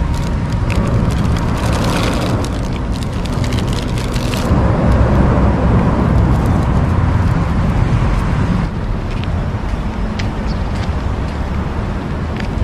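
Steady low rumble of road traffic on the highway bridge overhead, easing a little about two-thirds of the way in. During the first few seconds a plastic bread wrapper crinkles close by.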